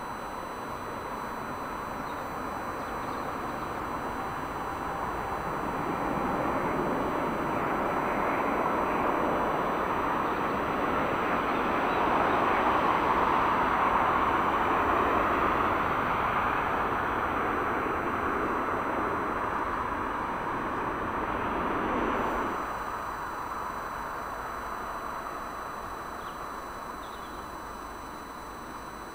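Jet airliner on approach passing by: a rushing engine noise that builds, peaks about halfway through, drops off sharply a little after two-thirds of the way and then fades.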